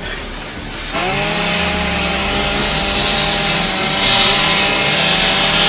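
A petrol disc cut-off saw revs up about a second in and runs at high speed, its blade grinding into metal with a loud, hissing screech. The sound cuts off suddenly at the end.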